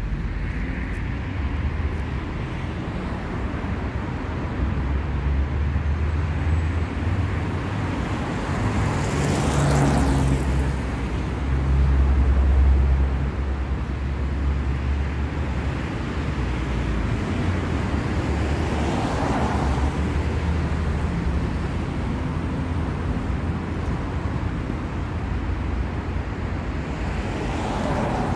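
Street traffic: a steady low rumble of engines, with cars passing by about three times, each swelling and fading, and a heavier low engine rumble that is loudest a little before the middle.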